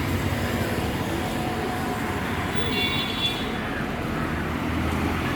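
Steady motor-vehicle traffic noise, a low rumbling running sound, with a brief high-pitched tone about three seconds in.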